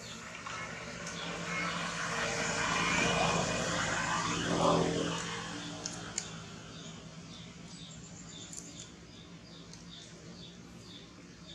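Engine noise of something passing by: it swells over a few seconds, peaks about four to five seconds in, then fades away. A small chirping call repeats about twice a second throughout.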